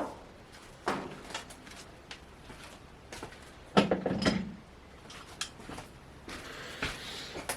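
Scattered knocks and clatter from objects being handled, with a louder clatter about four seconds in.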